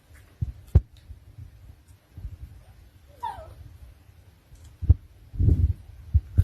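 A dog gives one short, falling whimper about three seconds in, among several dull low thumps.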